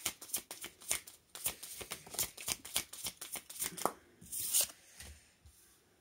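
Oracle cards being shuffled by hand: a rapid run of card flicks, ending with a short swish about four and a half seconds in.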